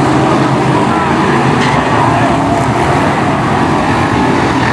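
Several BriSCA F1 stock cars' V8 engines running hard together at racing speed, a loud and steady mass of engine noise.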